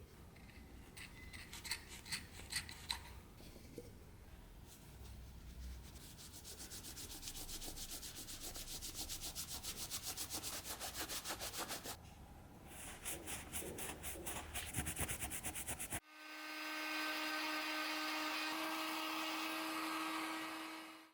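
Rapid, regular back-and-forth rubbing strokes by hand on wood, as in sanding or brushing a wooden knife handle, several strokes a second. About three-quarters of the way in, the rubbing stops and a steady humming tone fades in and out.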